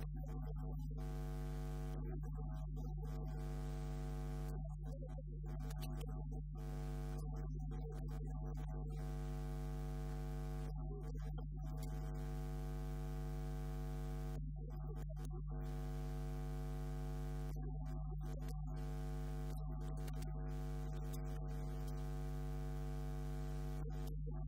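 Steady electrical mains hum, a constant buzz with its overtones that neither rises nor falls, with no speech heard over it.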